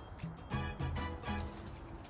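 Background music with a regular beat and low bass notes.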